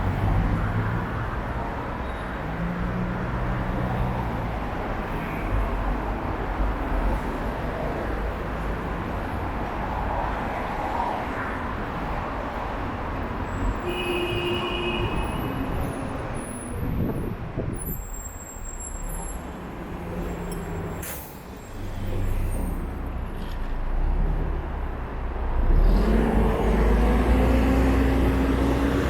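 City road traffic: cars and buses running past with a steady engine rumble and tyre noise. A short high beep sounds about halfway, and near the end a nearby vehicle pulls away, its engine note rising.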